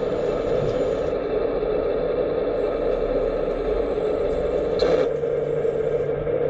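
Hydraulic pump of a 1/14-scale RC excavator running steadily, with a high whine that comes and goes as the controls are worked. A single sharp clack about five seconds in, after which the pump's note drops lower.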